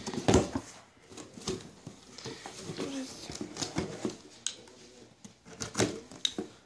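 Rustling and irregular light clicks and knocks of hands rummaging through a cardboard mailing box and handling small items from it, with a louder knock about a third of a second in.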